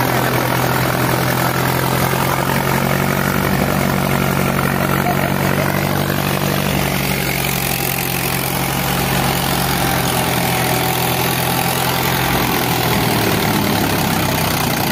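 Mahindra 575 DI XP Plus tractor's 47 hp diesel engine running steadily at working speed, driving a 100 hp wheat thresher, with the thresher running along with it. The engine is under heavy load from a thresher larger than it is rated for.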